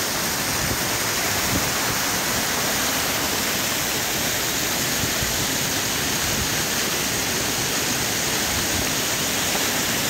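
Small waterfall spilling over mossy rock ledges, heard close: a steady, even rush of falling water.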